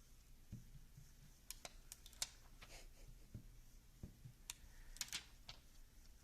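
Faint, scattered clicks, taps and short crackles of a dust-removal sticker being pressed onto and lifted off a phone's glass screen, with fingers tapping the glass.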